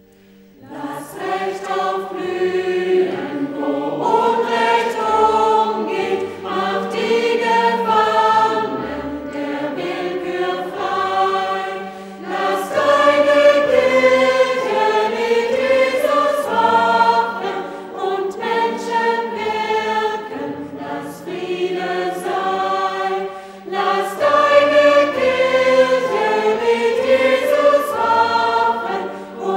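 Choir singing a German hymn set to a Swedish folk melody, in several parts. The full voices come in about a second in, after a quiet held note.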